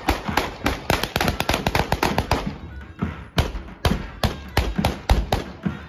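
A rapid string of sharp bangs, crowded together for about the first two and a half seconds, then thinning to single bangs about every half second, mixed with davul drum beats.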